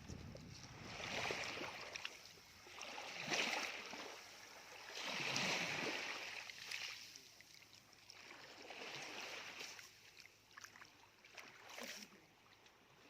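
Small waves washing up and draining back at the water's edge: a swell of hiss that rises and fades every two to three seconds.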